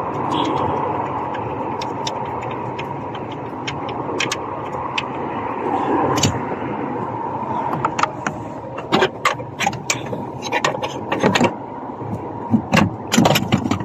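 Steady background mechanical hum, then from about halfway through a string of sharp, irregular clicks and knocks: hand tools and metal parts being handled while the engine computer box (ECU) is unbolted.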